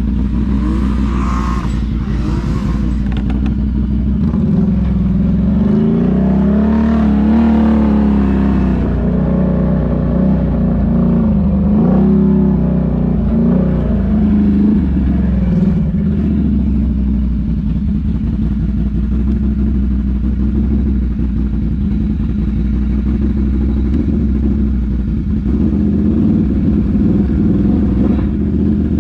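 ATV engine running under the rider, its pitch rising and falling as it revs up and eases off several times in the first half, then running at a steady speed.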